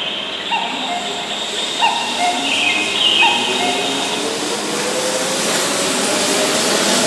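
Keihan 2200-series electric train pulling away from the platform, its traction motors whining and slowly rising in pitch from about halfway through as it gathers speed, over the noise of the moving cars.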